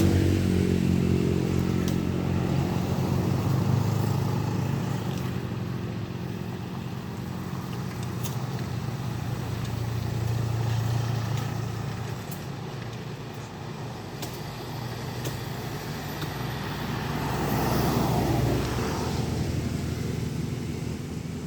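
Heavy diesel truck engine labouring up a steep climb: a steady low drone that swells again near the end and then fades.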